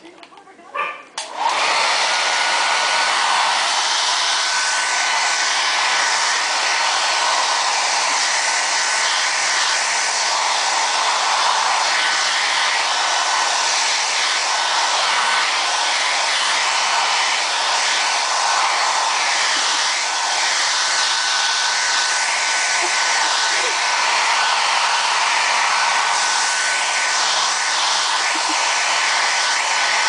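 Handheld blow dryer switched on about a second and a half in, then blowing steadily, a rush of air with a faint steady whine through it.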